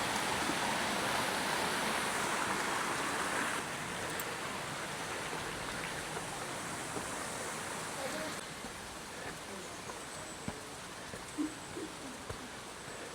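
Steady rush of splashing fountain water. It steps down in level suddenly twice, about four seconds in and again about eight seconds in.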